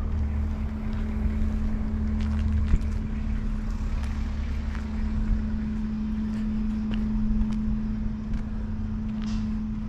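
A steady engine hum holding one even pitch, over a low rumble that eases off about three seconds in, with a few faint clicks.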